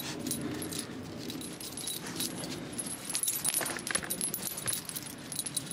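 Metal rings and clips on a dog's tracking lead jangling in light, irregular clinks as it swings and shifts with the walk.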